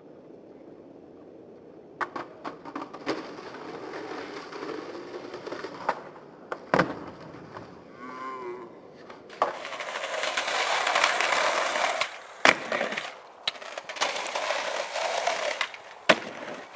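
Skateboard wheels rolling on concrete and pavers, with sharp clacks of the board popping and landing several times. The rolling is loudest in the second half.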